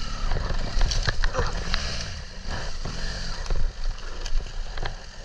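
Motorcycle engine revving up and down several times, its pitch rising and falling in short swells, with scattered sharp clicks and knocks.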